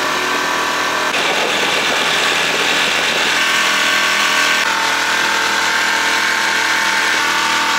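A small passenger boat's engine running steadily under way, with a rush of water and wind.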